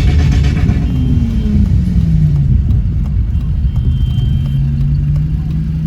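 Mitsubishi Pajero's engine with its revs dropping over the first couple of seconds, then holding steady and creeping up slightly, under a heavy low rumble of the moving vehicle.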